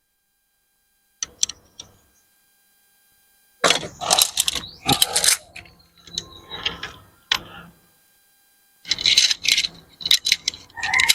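Tent pole sections clicking and clattering together as they are handled and assembled. A few light clicks come about a second in, then three bursts of rattling separated by short pauses.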